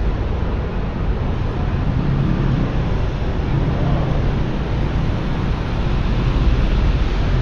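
Steady city street traffic noise: vehicle engines running low and steady, with tyres on a wet road.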